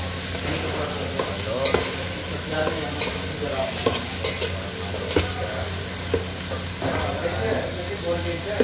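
Metal spoon stirring sliced chicken, onions and garlic frying in an aluminium pot, scraping and knocking against the pot about once a second over a steady sizzle. A steady low hum runs underneath.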